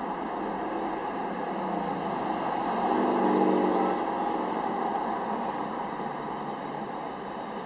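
Steady car and traffic noise while driving slowly in city traffic, with an engine sound rising and swelling louder about three seconds in, then easing off.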